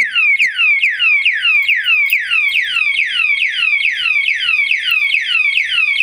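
Anti-theft siren alarm padlock sounding its alarm: a loud, fast repeating siren, each note sweeping down in pitch, about four a second. It has been set off by tampering with the armed lock and keeps sounding for about 10 seconds after each disturbance.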